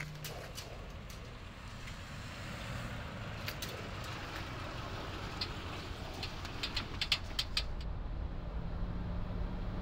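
A car on the move: steady engine and road rumble, with a scatter of sharp clicks and knocks in the middle, and the rumble growing louder near the end.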